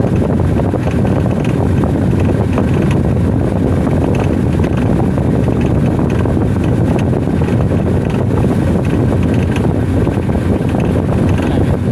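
Hitachi SF-160KJS top-load washing machine in a test spin, its drive motor turning the V-belt and transmission pulley with a loud, steady whir.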